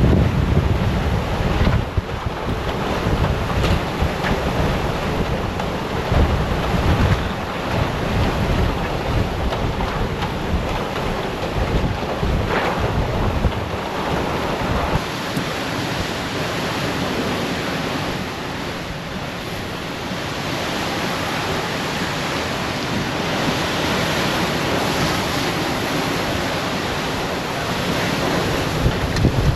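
Hurricane-force wind rushing and gusting, buffeting the microphone. The heavy low buffeting eases a little before halfway, leaving a steadier rushing hiss.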